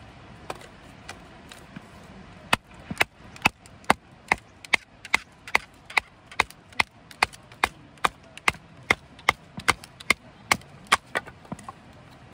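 Wooden baton knocking on the spine of a Mora knife to drive it down through a split of firewood (batoning). After a few scattered strikes, a steady run of about twenty sharp knocks follows at a little over two a second.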